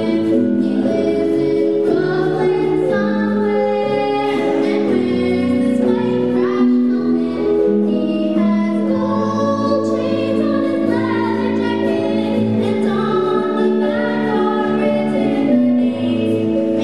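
A woman singing a song with live band accompaniment led by a keyboard, the voice holding long notes.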